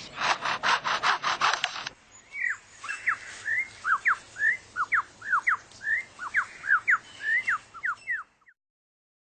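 Superb lyrebird mimicking a chainsaw: a harsh, fast-pulsing rasp for about two seconds. It then breaks into a run of quick, clear whistled notes, mostly sweeping downward, which stop about eight and a half seconds in.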